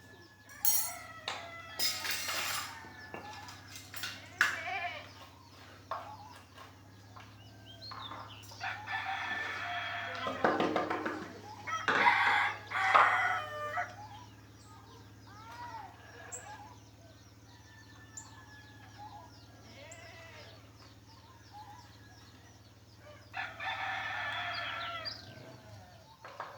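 Rooster crowing, three long crows with clucking between them, and a few sharp taps in the first seconds.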